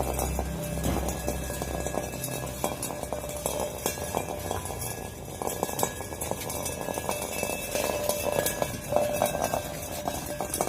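Milk bucket being rattled and knocked, a dense run of irregular clinks and clanks. A low hum underneath stops about two and a half seconds in.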